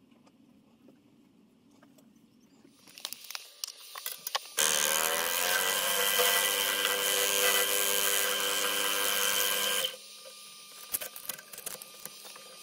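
Wood lathe motor starting up, its pitch rising as it comes up to speed, then running steadily with a high whine for about five seconds before stopping abruptly. Quiet clicks and handling before and after.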